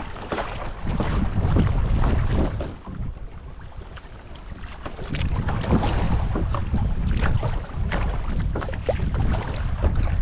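Kayak paddling on a lake, with short splashes of the paddle in the water. Wind buffets the microphone in gusts, easing for a moment a few seconds in and then picking up again.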